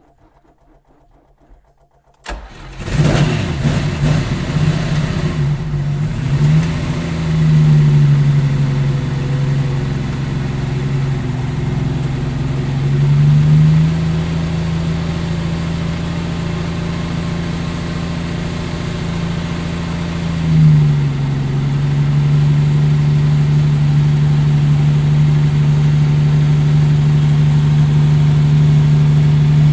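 A stone-cold Lamborghini Miura's carburetted V12, which has no choke, fires up about two seconds in. It runs ragged for a few seconds, then is held at a steady fast idle of about 1500 rpm to warm through, with three brief rises in revs along the way.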